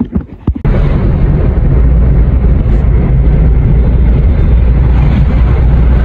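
A few short knocks from a phone being handled, then from just under a second in a loud, steady low rumble of a car driving, heard from inside the cabin: engine and road noise.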